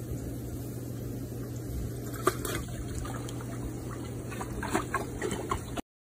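Hot tub jets churning the water over a steady low pump hum. A sharp splash comes about two seconds in, then smaller irregular splashes as a puppy paddles in the water, and the sound stops abruptly near the end.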